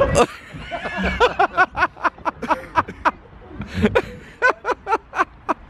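A person laughing hard in rapid short bursts, two bouts of laughter with a brief pause between them.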